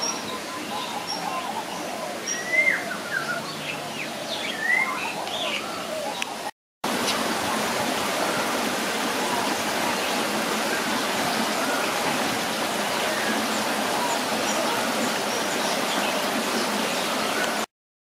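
Birds chirping over a steady rush of running water. After a brief cut-out about six and a half seconds in, a denser, steady wash of sound returns, flecked with many small chirps.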